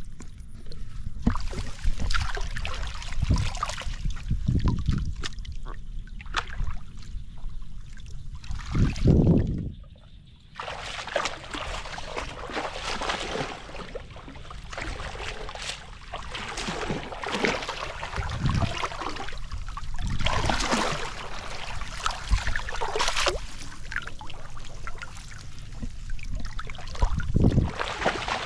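Water sloshing and trickling in irregular splashes, with dull low thumps now and then, the loudest about nine seconds in, and a short lull just before ten seconds.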